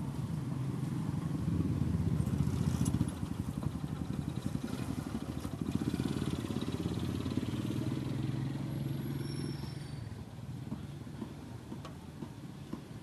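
Motorbike engines running close by, swelling twice: once about one to three seconds in and again from about six to nine seconds, then fading toward the end.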